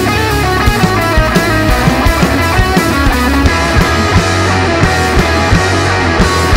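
Rock band playing: electric guitar over bass guitar and drums, with a steady drum beat.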